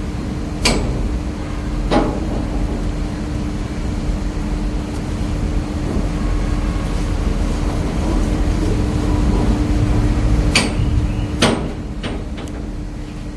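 Steel roof bow of an open-top shipping container knocking against the container's steel side walls as it is handled and fitted: two sharp clanks early, then a quick run of four near the end, over a steady low hum.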